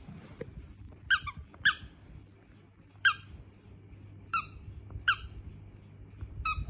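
Squeaky plush toy squeaking six times in short, sharp, high squeaks at irregular intervals as a Shih Tzu puppy bites and plays with it, over a steady low hum.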